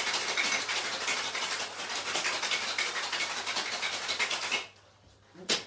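Ice rattling hard in a cocktail shaker (shaker tin sealed with a speed cup) shaken vigorously, stopping about four and a half seconds in. A single sharp knock follows near the end.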